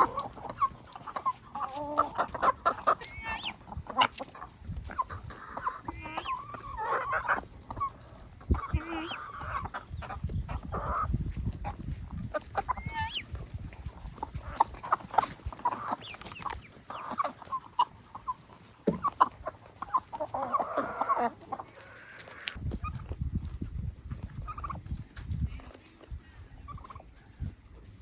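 A flock of chickens clucking on and off, many short calls scattered throughout, with low rumbles now and then.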